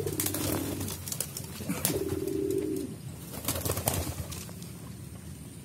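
Domestic pigeons cooing, two rolling coos about a second each, one at the start and one about two seconds in, with a few sharp clicks and knocks between them.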